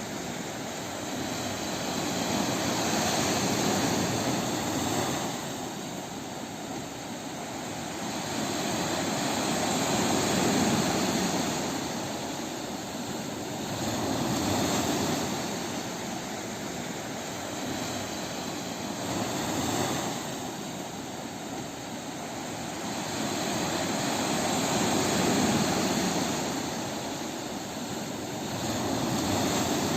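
Ocean waves breaking on a beach, a continuous rushing surf that swells and falls back about every five seconds.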